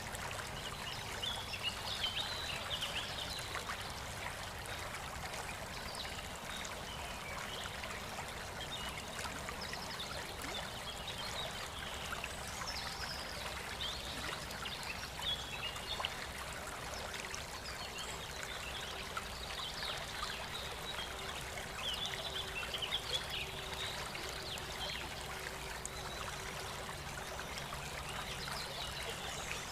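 Steady light rain with water trickling. Clusters of short, high chirps come and go every several seconds.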